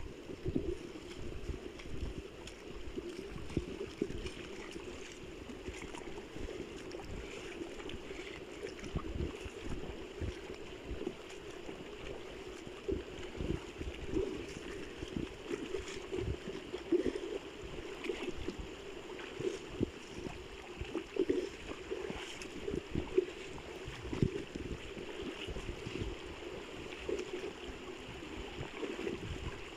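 Steady rush of flowing stream water, with irregular low bumps on the microphone throughout.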